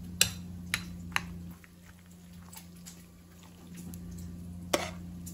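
Metal spoon stirring cooked rice into a thick casserole mix in a glass bowl, with sharp clicks of the spoon against the glass, three in the first second and a half and one more near the end.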